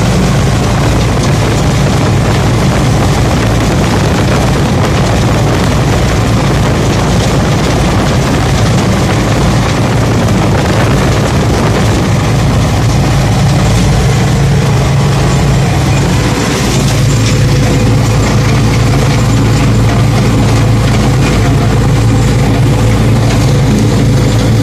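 Belarus MTZ-80 tractor's four-cylinder diesel running steadily under load while a rear-mounted 165 cm corn stalk chopper cuts dry stalks, heard from inside the cab.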